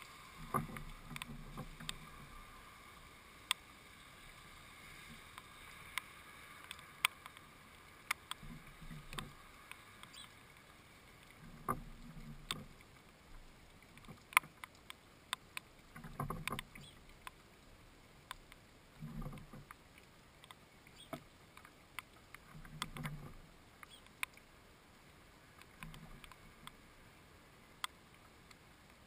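House sparrow feeding inside a wooden bird feeder: sharp taps and clicks of its beak pecking at a seed-fat ball in a net and at seeds. Every few seconds comes a dull knocking and scuffling against the wooden boards.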